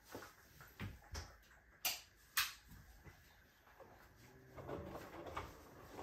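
Hoover H-Wash 350 washing machine: a few sharp clicks, the two loudest about half a second apart, then about four and a half seconds in the drum motor starts and the drum begins turning the wet laundry with a low hum and tumbling noise.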